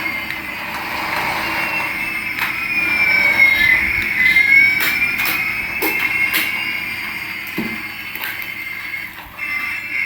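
Electronic sound effects from a battery-powered toy: tones glide up and down in pitch and cross in the middle, with scattered clicks.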